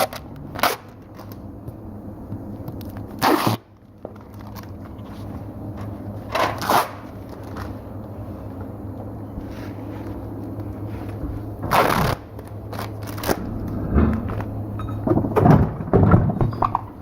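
Tyre workshop noises: a series of short metallic knocks and clanks, some in quick pairs, over a steady low machine hum.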